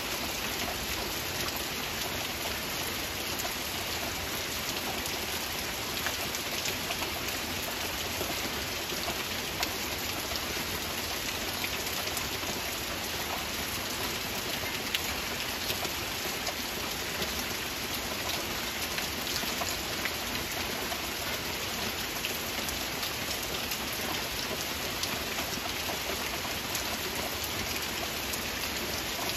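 Steady rain falling, with a dense patter of individual drops ticking on a surface. A few slightly louder single ticks stand out now and then.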